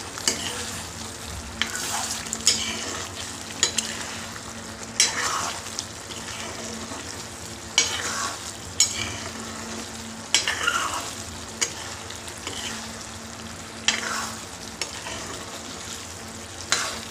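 A metal ladle stirring thick chole (chickpea and potato curry) in a black kadhai, clinking and scraping against the pan roughly once a second. Under it the curry keeps up a steady bubbling sizzle.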